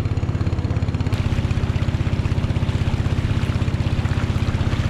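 A small boat's engine running steadily with a fast, even pulse while crossing a river.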